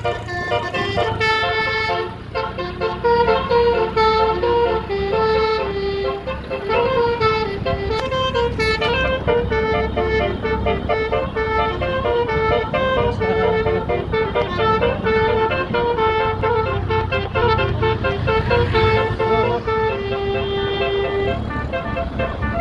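Bus telolet musical air horns playing tunes in quick stepping notes, with one long held note near the end, over the rumble of bus engines.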